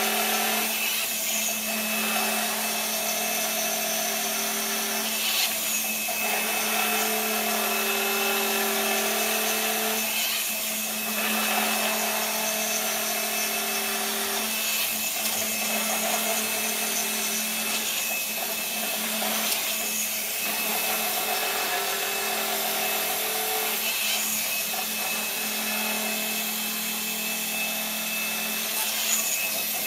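Electric motors of a homemade gyroscopic inertial thruster running through drive cycles: a steady hum with higher tones that come and go every couple of seconds, and a rasping whir that swells about every four to five seconds.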